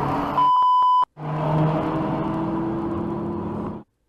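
In-car dashcam road and engine noise, broken by a steady high-pitched electronic bleep lasting about half a second. After a short gap, another dashcam clip's in-car road noise and engine hum takes over and cuts off abruptly near the end.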